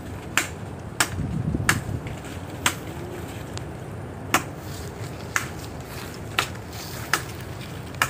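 Chopping blows into the trunk of a dead, rotting coconut palm as it is felled: about nine or ten sharp knocks, unevenly spaced, roughly one a second.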